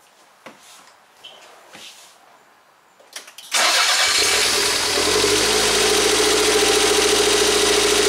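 The 1992 Toyota MR2's 2.0-litre turbocharged four-cylinder engine starts about three and a half seconds in, after a few faint clicks, and then idles steadily.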